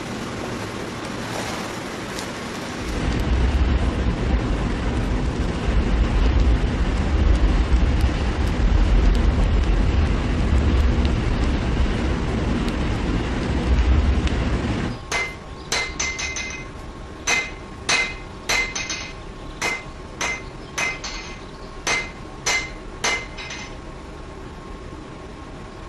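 A loud, steady rumble with a deep low drone cuts off suddenly about halfway through. It is followed by about a dozen hammer blows on metal, irregularly spaced, each with a short metallic ring.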